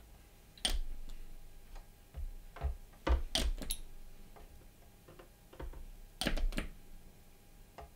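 Light clicks and taps of plastic model kit parts being handled and pressed into place on a plastic model airframe, with a few louder knocks about three seconds in and again around six seconds in.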